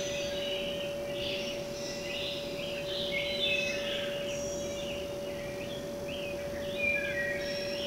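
Many small birds chirping and whistling at once, short overlapping calls coming and going throughout, over a steady hum.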